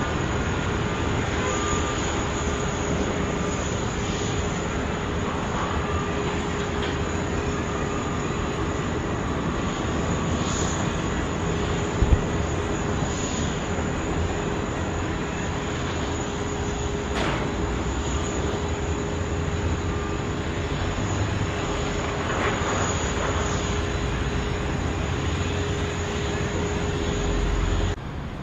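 Jet airliner engines running, a steady rush with a steady whine held over it. There is a sharp click about twelve seconds in, and the sound drops off suddenly near the end.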